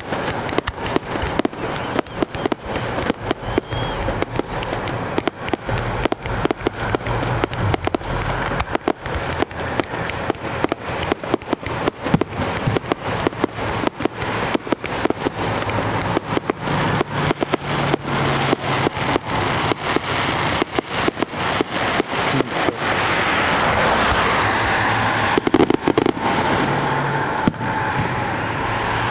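An aerial fireworks display going off in a rapid, continuous string of bangs and crackles, about three or four reports a second. Near the end the bangs thin out under a steady rushing noise.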